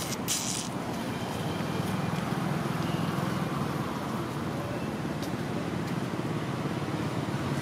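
Steady low background rumble, with a brief high hiss about half a second in.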